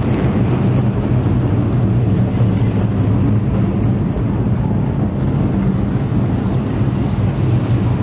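Late model stock car V8 engine running steadily at low revs, a deep even note with no revving.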